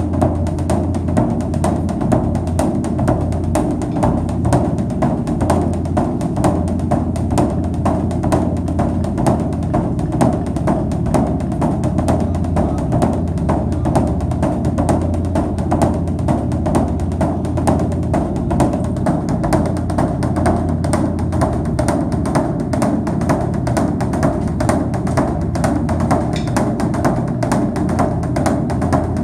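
Background music driven by drums and percussion, with a steady, fast beat throughout.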